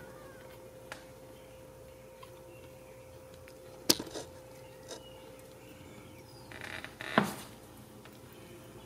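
Two sharp knocks, the first about four seconds in and the second, louder one about seven seconds in, with a few small ticks between them. A faint steady hum runs underneath.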